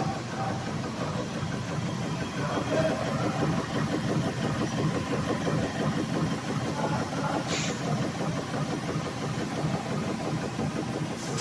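Two-spindle PCB drilling machine running, with a steady, rapid mechanical chatter. A short burst of hiss comes about seven and a half seconds in.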